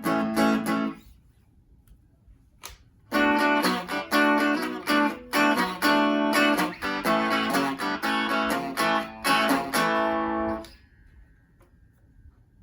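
FireFly FFTL Telecaster-style electric guitar strummed in chords: a short burst at the start, then after a pause of about two seconds, steady strumming for about seven seconds that stops near the end.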